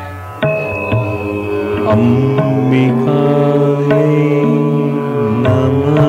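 Indian devotional meditation music: a steady low drone under a gliding melody, with plucked or struck notes falling at a regular pulse.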